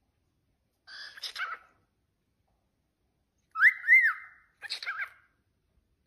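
Cockatiel chattering and whistling: a short chattering phrase about a second in, then a loud two-note whistle, each note rising and falling, followed by another short chatter near the end.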